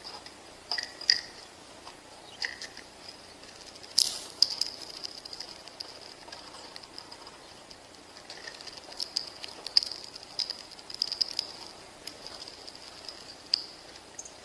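Small birds chirping: short, high chirps and twitters come in scattered bursts over a faint, steady high hiss, with a sharp click about four seconds in.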